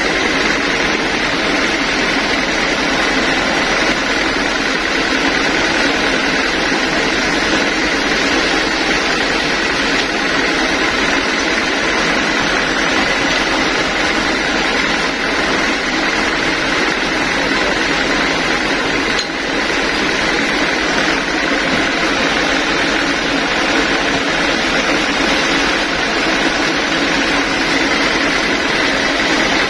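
Band sawmill machinery running steadily while the log is being set, not cutting: an even, constant noise with a steady high whine.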